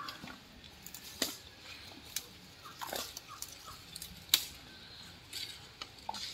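Birds chirping in the surrounding trees, broken by about half a dozen sharp clicks or snaps; the loudest comes a little over four seconds in.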